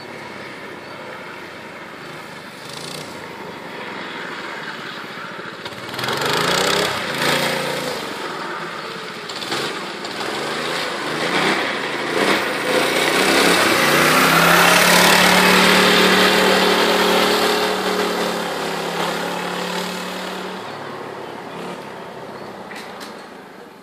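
Small engine of a motorized drift trike revving up and down through a corner, getting louder as it passes close by, with a steadier pitch about halfway through, then fading as it moves away.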